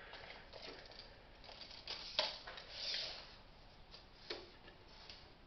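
Quiet handling sounds of a steel tape measure being drawn out and laid across a wooden bowl: a sharp click about two seconds in, a short rasping slide just after, and another click a second later.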